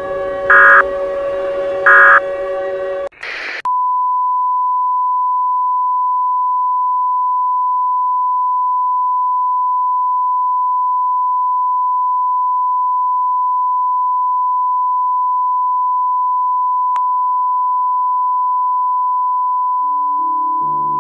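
The last two bursts of an Emergency Alert System end-of-message data code over a steady drone, then a brief burst of static about three seconds in. After that comes a steady single-pitch off-air tone that holds unbroken, with one faint click near the end.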